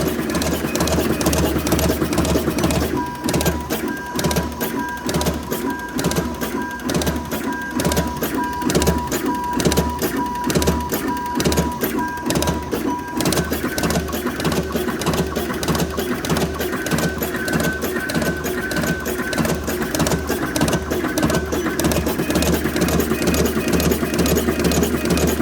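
A machine running in a steady cycle: low thumps about twice a second under a continuous clatter, with a steady high tone sounding from about three seconds in for about ten seconds.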